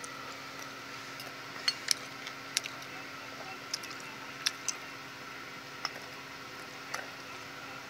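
A fork clinking and scraping against a plate while picking up food: about eight short, sharp clicks at irregular intervals.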